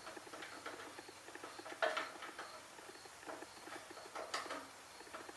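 Small metal clicks and scrapes of a wrench working a star bolt loose on a Briggs and Stratton 5 hp engine's carburetor mount, with a sharper click about two seconds in and another a little past four seconds.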